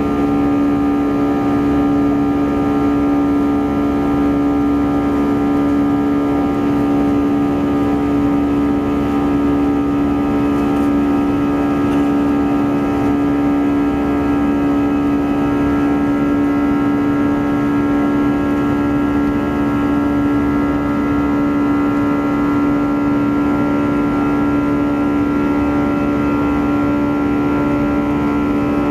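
Airbus A321-211's CFM56-5B3/P turbofan engines at climb power, heard from inside the cabin: a steady drone with a strong low hum and several higher held tones over rushing noise.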